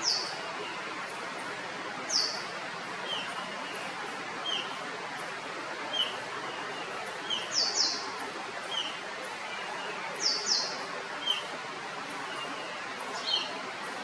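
A flycatcher calling: sharp, high falling notes every few seconds, sometimes in quick pairs, with softer, lower short notes in between, over a steady background hiss.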